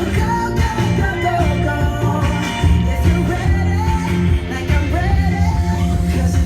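Pop-rock song with a sung vocal over a steady beat.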